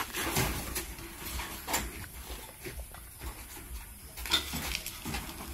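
Irregular metallic clanks, knocks and rattles of a wire-mesh gate and cage being handled, with the sharpest knocks about two seconds in and about four seconds in.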